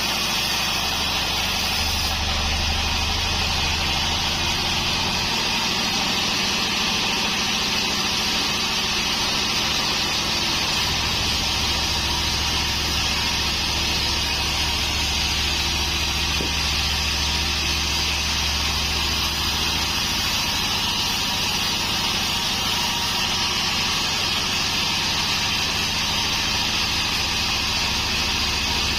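Pandan band sawmill running steadily, a constant engine hum with a high hiss above it; the low hum shifts in strength a few times.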